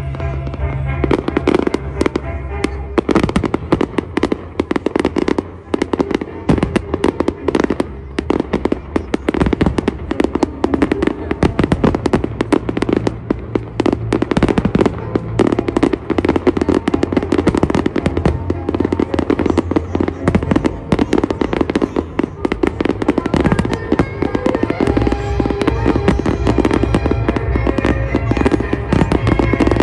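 Aerial firework shells bursting in a dense, rapid barrage, many bangs a second, over music.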